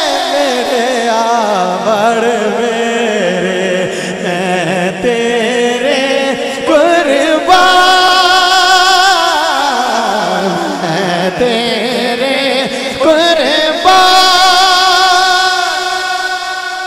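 A man singing a Punjabi devotional naat solo, drawing out long melismatic notes with a wavering vibrato. His voice slides down low twice and climbs back to a high held note, about seven seconds in and again near the end, then fades out.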